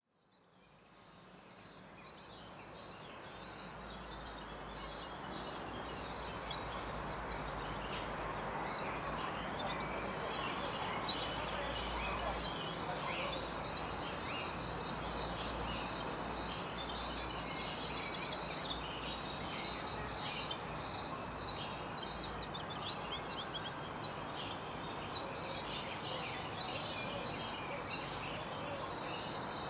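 Crickets chirping in even high pulses and birds calling, over a steady hiss, fading up from silence over the first few seconds.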